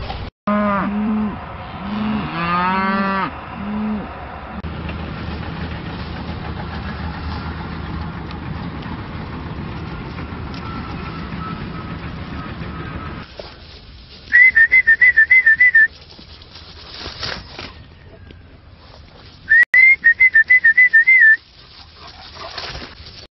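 A large dog's drawn-out whining howls, several in the first few seconds, then a steady hiss of wind on the microphone, and later two short bursts of a high warbling whistle a few seconds apart.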